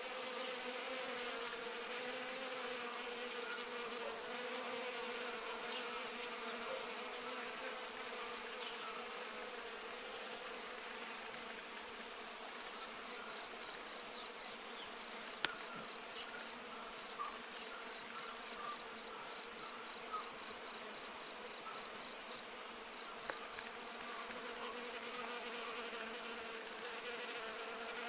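Many bees humming steadily over a phacelia field in full nectar flow. About twelve seconds in, a rapid, even high chirping joins for roughly ten seconds.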